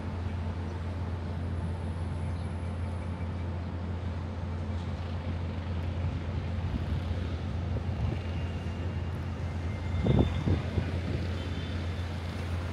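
Steady city traffic rumble, with a louder swell about ten seconds in as a vehicle passes close by.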